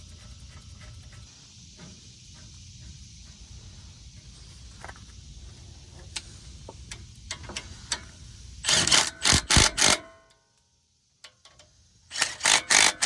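Cordless Milwaukee impact wrench driving the brake caliper bolts home. It sounds in two clusters of short, stuttering bursts, the first about nine seconds in and the second near the end, after several seconds of faint clicks as the hardware is fitted by hand.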